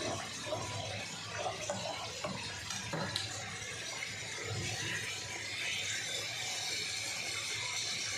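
Curry masala of onion, tomato and yogurt sizzling in oil in a pan. A wooden spatula stirs and knocks against the pan during the first few seconds, then the sizzle goes on steadily.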